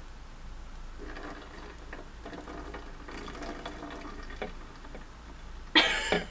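A thick yeast mixture is poured from a glass jug into the neck of a plastic bottle of hydrogen peroxide solution, giving faint liquid pouring sounds. Near the end there is a short, loud burst from a person's voice.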